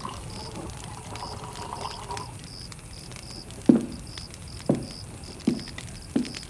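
Four deep thuds about a second apart, each dropping quickly in pitch, over a faint steady high chirping; a held tone fades out about two seconds in.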